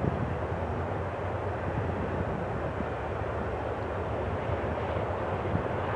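Freight train's double-stack container cars rolling past, a steady, even rumble of wheels on rail heard from across a field.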